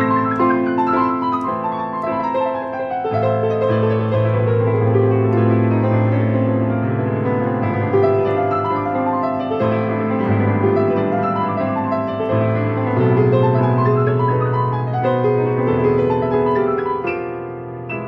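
Digital piano played with both hands, a dense stream of notes over held bass notes. It opens with a long descending run and tails off as the sound fades near the end.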